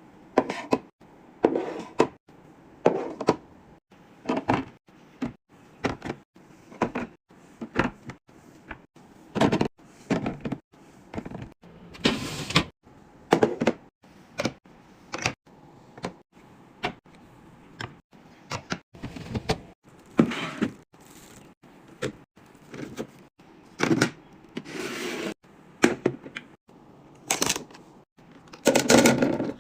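Items being handled and set down while restocking a fridge: a string of separate knocks, clacks and rustles, roughly one a second, with a few louder packaging rustles.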